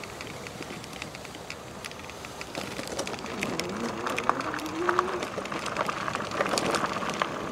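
Electric bike rolling over gravel: tyres crunching, with many scattered sharp ticks and rattles that thicken in the second half. A low whine rises in pitch around the middle.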